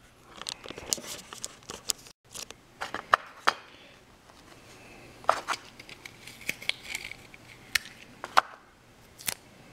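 Scattered small clicks, taps and crinkles of fingers pressing clear adhesive tape down over a laptop screen's flat ribbon-cable connector.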